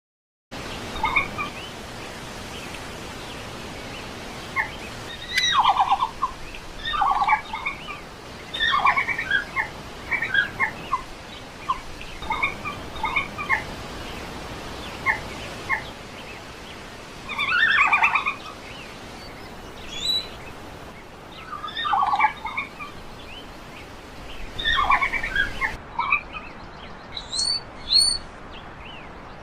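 Red panda calls: short, bird-like chirping twitters in quick bouts, repeated every second or two. Near the end a higher, thinner series of chirps takes over.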